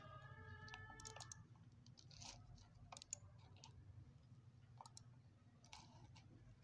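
Faint, scattered computer mouse clicks over a low steady hum, with a faint held tone in the first second and a half.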